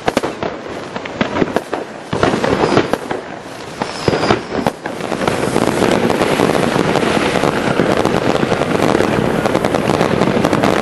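Fireworks and firecrackers going off in a rapid run of sharp bangs and crackles. About halfway through, this gives way to a denser, steadier noise.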